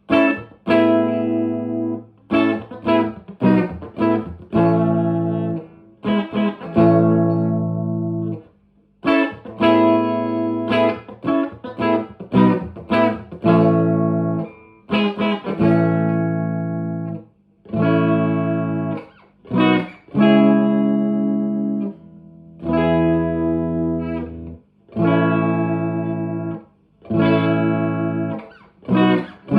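Electric guitar, a 1983 Fender Squier JV Telecaster, played through channel 2 of a 1963 Selmer Thunderbird Fifty valve amp with 1970s Celestion Greenback speakers. It plays a sequence of chords: some are let ring for a second or two, others are short quick stabs, with brief pauses about eight seconds in and again around seventeen seconds.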